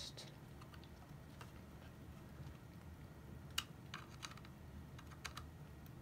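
Faint scattered clicks and taps of a 2.5-inch SanDisk SATA SSD being handled and lined up with a laptop's drive bay connector, the clearest tap about three and a half seconds in.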